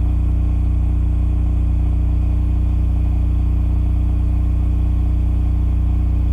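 Cummins RS20A home standby generator running steadily under load at 3,600 RPM, heard from 7 meters away: a constant, unchanging low engine hum.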